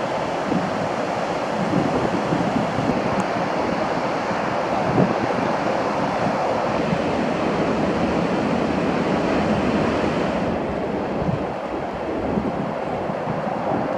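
Ocean surf breaking and washing on the beach in a steady rush, with wind rumbling on the microphone. The hiss of the surf softens a little about ten seconds in.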